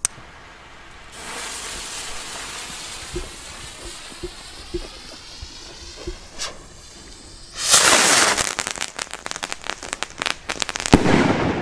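A lighter clicks, then a Funke salute rocket's fuse and motor hiss steadily for several seconds. A loud, fast crackling follows as the rocket goes off, and a single very loud bang comes near the end as the salute charge bursts.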